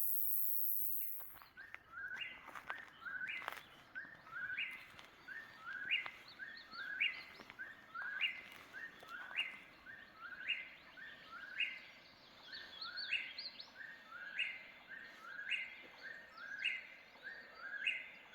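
Eastern whip-poor-will singing its repeated whip-poor-will phrase about once a second, each phrase ending on a rising upswept note.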